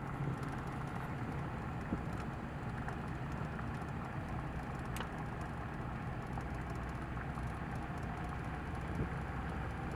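Steady low drone of a truck running, heard from inside the cab, with a faint click about halfway through.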